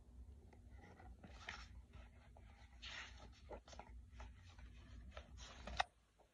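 Quiet rustling and scattered small clicks from the pages of a picture book being handled, over a faint low steady hum that stops near the end.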